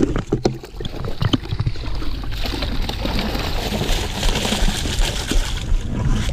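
Water and a trout poured from a tipped bucket into a stream, splashing steadily from about two seconds in. Before that there are scattered knocks and rustling.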